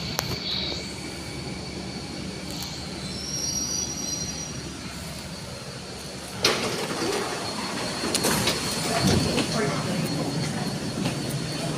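C951 Downtown Line train running, heard from inside the carriage: steady rumble with a thin high whine of wheel squeal. About six seconds in the noise suddenly gets louder and stays up.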